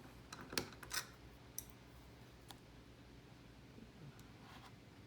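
Light clicks and taps of small hard parts being handled as a CPU cooler's mounting brackets are removed to be refitted, a quick cluster about a second in, then a few single ticks.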